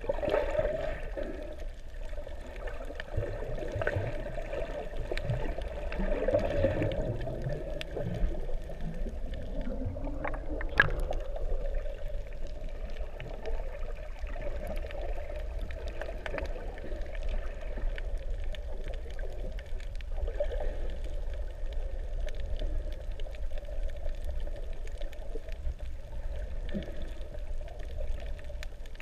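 Underwater sound heard through a submerged camera: a steady, muffled wash of water with a low rumble, faint scattered clicks, and one sharp knock about eleven seconds in.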